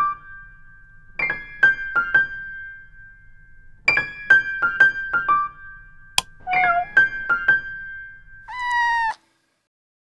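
A short electric-piano jingle in three phrases of quick notes, with one sharp click just after the third phrase begins. A cat's meow comes about eight and a half seconds in, then it goes silent.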